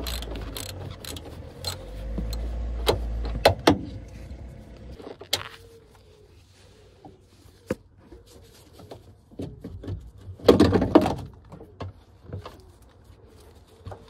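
A socket ratchet clicks and a steel tool knocks on metal as a 16 mm bolt holding a seat-belt pretensioner is undone. There are a dozen or so sharp clicks in the first few seconds, then scattered faint ticks. About ten seconds in comes a louder scraping rustle as the unit is worked loose.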